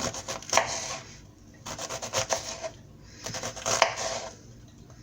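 Kitchen knife slicing through an onion on a cutting board: three bouts of quick cutting strokes, each about a second long, with short pauses between.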